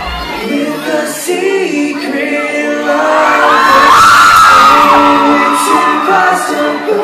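Live pop band playing and singing in a concert hall, with fans screaming and cheering over it; the screaming swells to its loudest about four seconds in.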